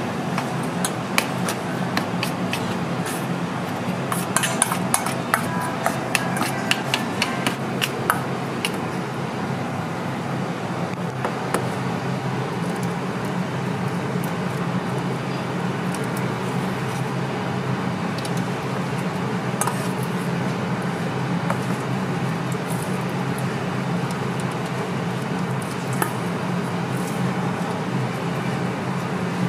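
A metal spoon clinks and scrapes against a stainless steel mixing bowl as rice is mixed, with quick clicks for the first several seconds. After that come only a few scattered taps, over a steady low hum.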